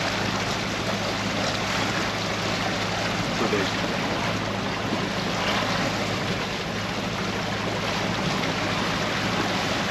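Motor yacht under way: its engine humming steadily, with water rushing along the hull and wind noise.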